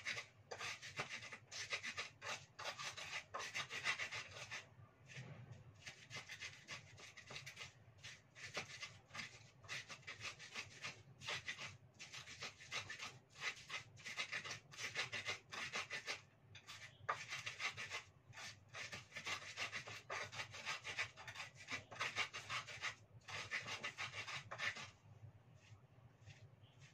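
Pestle grinding spice paste in a small cobek mortar: rhythmic rasping, scraping strokes in runs with short pauses, stopping near the end.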